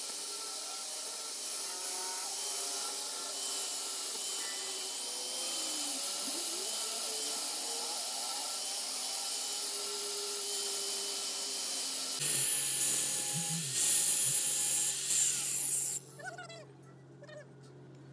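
Angle grinder's abrasive disc grinding the hardened steel teeth of a truck differential's spiral bevel pinion: a steady, high hissing grind of disc on steel. It stops abruptly about two seconds before the end.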